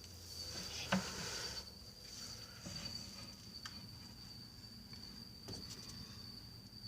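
A cricket trilling steadily at a single high pitch, with a few faint clicks and knocks of handling now and then.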